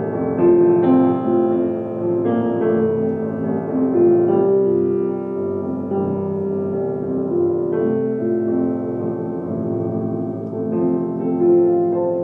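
Grand piano played solo: a slow passage of held notes and chords.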